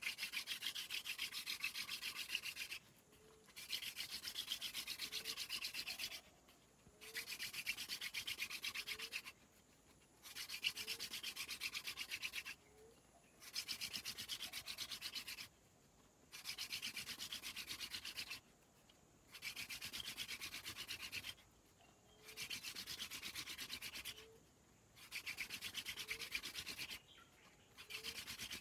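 Hand-drill friction fire: a wooden spindle twirled between the palms grinds into a wooden hearth board in repeated bursts of two to three seconds, with short breaks while the hands move back up the spindle.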